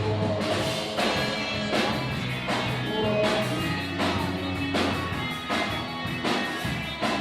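Rock band playing: guitar and drum kit over a steady beat.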